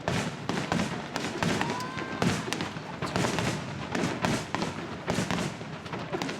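Star mine fireworks barrage: many shell bursts in rapid succession, bangs and crackling with hardly a break. A brief faint whistle rises about two seconds in.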